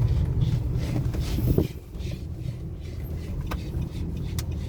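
Nissan Calibre pickup's diesel engine running with a low steady rumble on a test drive. Its level drops suddenly about one and a half seconds in, followed by a few faint clicks.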